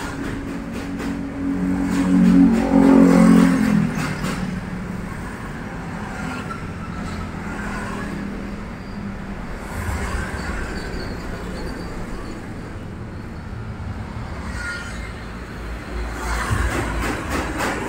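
A car engine running, with a loud steady pitched hum through the first four seconds that then falls away to a steadier rumble.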